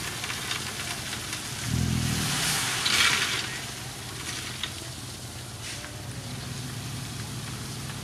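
Dump truck's diesel engine running while its raised bed tips out a load of gravel, the stone sliding off with a rushing hiss that peaks about three seconds in. The engine gets briefly louder about two seconds in.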